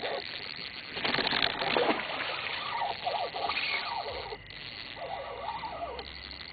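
Water splashing about a second in, then a few short rising-and-falling calls over a steady background hiss.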